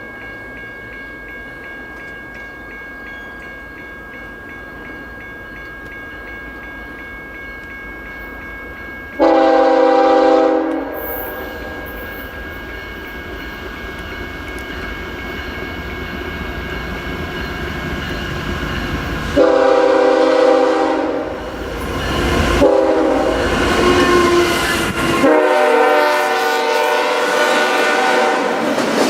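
Canadian National diesel freight locomotives approaching and sounding their air horn. There is one long blast about nine seconds in, another about twenty seconds in, and a last long blast from about twenty-five seconds in to the end, while the rumble of the engines grows steadily louder. Near the end the train's rumble and wheel clatter become loud as it draws alongside.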